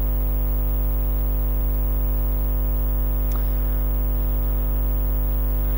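Steady electrical mains hum with a stack of overtones, and one faint click about three seconds in.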